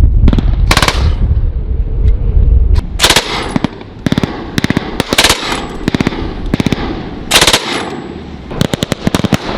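Automatic fire from machine guns and assault rifles: repeated short rattling bursts with scattered single shots between them, each burst trailing off in an echo.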